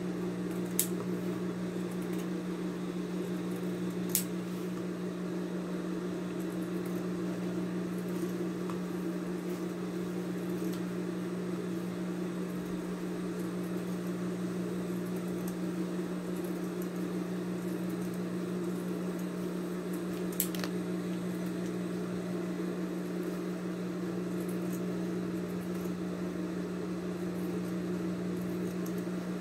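Steady low electric hum, with three brief sharp clicks: about a second in, about four seconds in, and about twenty seconds in.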